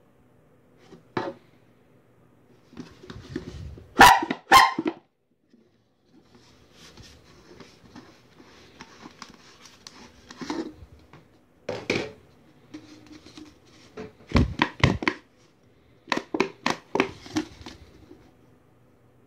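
Plastic bellow horn honked twice, two short blasts about half a second apart. Later come scattered plastic clicks and knocks as the corrugated squeeze bellows is handled and taken off the horn.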